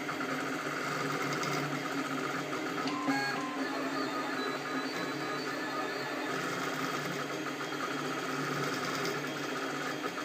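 Ultimaker 3D printer running a print: its stepper motors whirring and buzzing in shifting tones as the print head moves back and forth over the part, with a brief higher tone about three seconds in.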